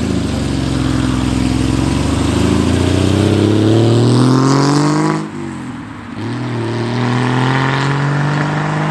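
A car engine accelerating hard, its pitch rising steadily, dropping sharply at a gear change about five seconds in, then rising again in the next gear.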